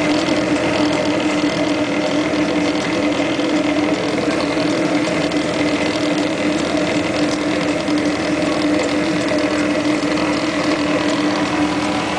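Solna D300 printing press running, a steady mechanical drone with a strong constant hum and fast faint ticking from its gears and rollers.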